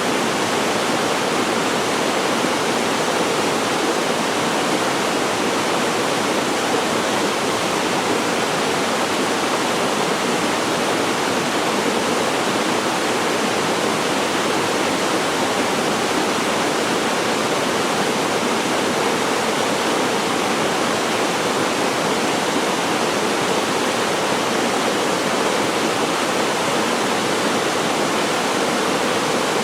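Waterfall pouring steadily into its pool: a constant, even rush of falling water with no breaks.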